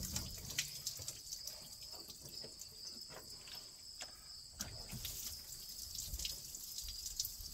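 Engine coolant trickling and dripping out of a Ford 385-series big-block V8 as its cylinder head is broken loose from the block, with scattered small drips and clinks.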